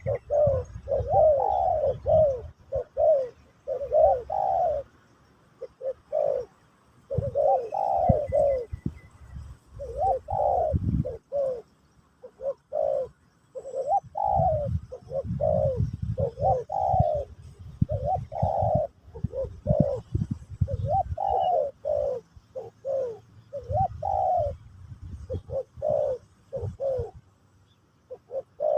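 Spotted dove cooing repeatedly in short phrases of several coos, with brief pauses between phrases, over a low rumble.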